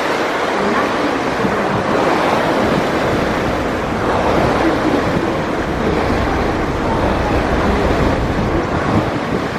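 Steady wind buffeting the microphone over the rush of river water, heard on the deck of a ferry under way. The low rumble of the wind grows heavier from about four seconds in until near the end.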